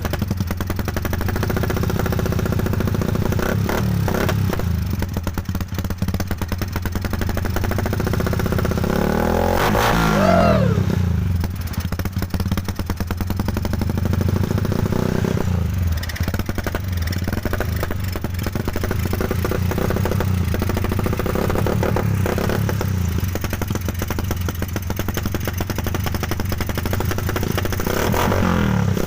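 Rusi 125 motorcycle engine with a newly fitted V-Max aftermarket exhaust, idling and blipped a few times. The biggest rev, about ten seconds in, climbs and falls back to idle.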